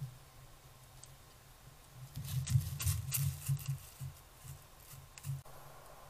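Irregular crunching and rustling in dry leaf litter for about three seconds, starting about two seconds in and fading out before the end.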